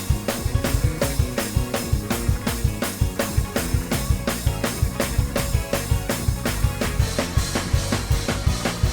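Drum kit and keyboard playing a fast gospel praise break: kick, snare and cymbals drive a steady, rapid beat of about four to five hits a second over held keyboard chords.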